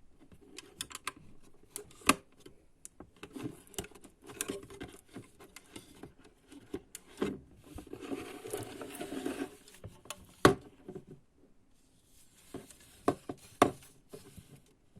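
Lego bricks being handled: scattered sharp plastic clicks and knocks, with a stretch of rustling and rummaging through pieces about eight seconds in.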